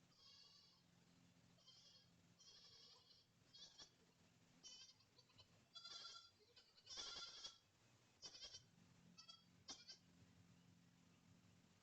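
Goats bleating faintly, a string of short calls with the loudest about seven seconds in, over a steady low hum.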